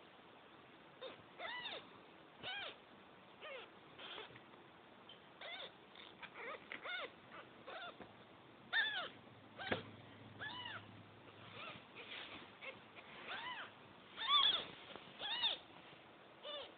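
Young kittens mewing over and over: short, high-pitched cries that rise and fall, about one a second, the loudest near the end.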